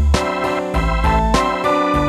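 Background music: an electronic keyboard tune over a steady beat.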